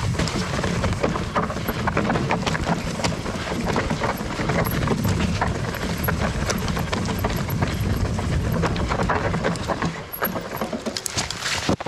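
Steel hardtail mountain bike clattering over rough rocky ground on a fast descent: a dense, continuous run of knocks and rattles from tyres striking stone and the unsuspended frame shaking, over a low rumble, easing slightly near the end.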